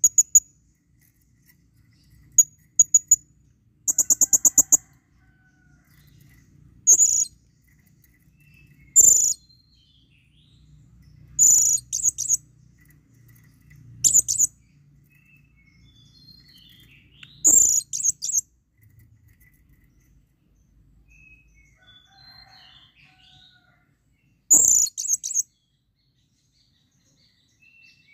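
Blue-crowned hanging parrot (serindit) giving very high, shrill chirps in short bursts every two to three seconds, with one quick trill of about ten notes about four seconds in. These are the in-heat calls of a male calling for a female.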